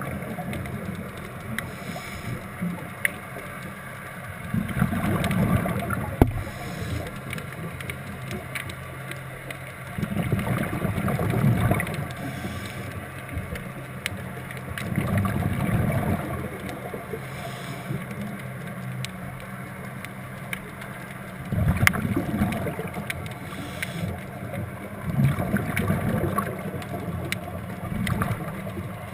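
Scuba diver's regulator underwater: exhaled bubbles gurgle out in a burst about every five to six seconds, five breaths in all, quieter between them. Faint scattered clicks run throughout.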